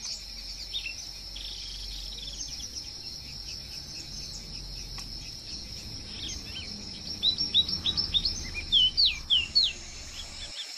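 Small forest birds calling with short, high chirps scattered throughout, becoming a loud, rapid series of sharp notes from about seven seconds in. A steady high insect drone runs underneath.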